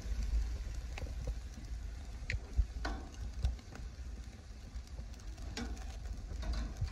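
Meat, shrimp and vegetables sizzling over a hot charcoal fire on a grill, with scattered pops and crackles. A steady low rumble runs underneath.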